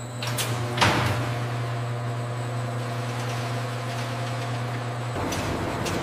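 Steady machine hum from food-processing equipment, with two sharp clacks about half a second apart near the start. The hum changes character about five seconds in.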